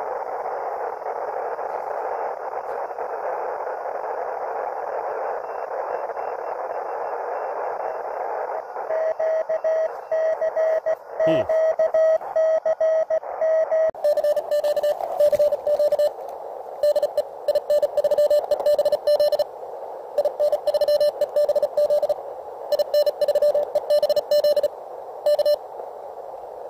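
Audio from the (tr)uSDX transceiver's speaker: band hiss through a narrow filter, then Morse code (CW) tones keying on and off from about nine seconds in. A whistle sweeps sharply down in pitch about eleven seconds in. From about fourteen seconds a louder run of Morse code at a slightly lower pitch follows.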